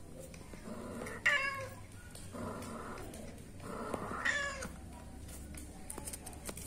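Cats mating, with a male mounted on a female in heat: drawn-out meowing calls, loudest a little over a second in and again about three seconds later, with quieter cries between.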